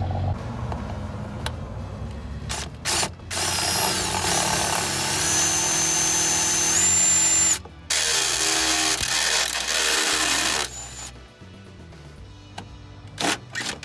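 Cordless drill enlarging pilot holes in a truck's sheet-metal firewall to about 3/8 inch for a clutch master cylinder. There are two long runs of the whining motor with a short stop between them, and the whine steps up in pitch during the first run. A few short blips of the trigger come before and near the end.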